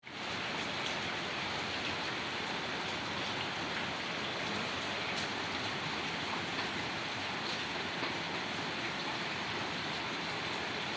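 Steady rushing noise like falling rain, with a few faint ticks scattered through it.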